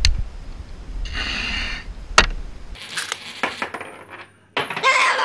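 Wind rumble on the microphone beside a kayak, with a sharp knock about two seconds in. Then, after a cut, coins clink one at a time as a small white cockatoo picks them out of a jar and drops them onto a wooden shelf.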